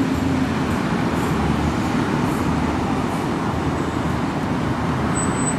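Steady road traffic: cars driving through a junction, a continuous rush of engines and tyres.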